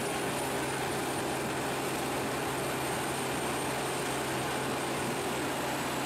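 Stump shredder running steadily: a constant, even heavy-machinery drone with a low hum and a faint high whine, and no separate impacts.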